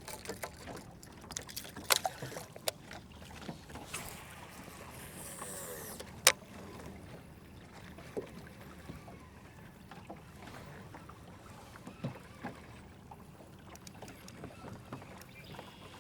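Scattered clicks and knocks from fishing gear and the boat over a faint steady background of water and wind, with one sharp knock about six seconds in.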